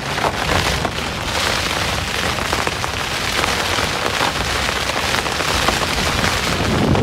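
Storm rain and wind beating on a Coleman tent's flysheet, heard from inside the tent: a dense, steady patter of rain on the fabric over a low rumble of wind.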